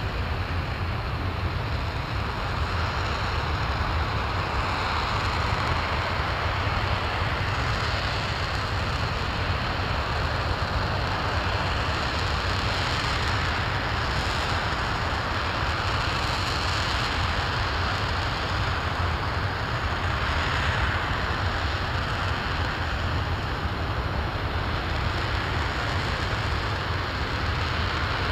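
RS-25 liquid-hydrogen rocket engine firing at full run on a ground test stand: a steady, unbroken rushing noise with a heavy deep rumble underneath. The engine is in the middle of a long hot-fire test.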